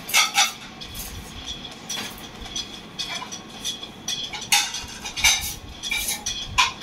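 Fireworks popping and crackling overhead: irregular sharp cracks, a dozen or so, some in quick pairs.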